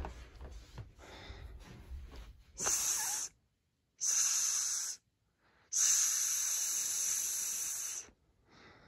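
Three hissing sounds: a short one about two and a half seconds in, a slightly longer one near the middle, and a long one of about two and a half seconds, each cutting off sharply into silence. Before them come soft rustling and light handling thumps.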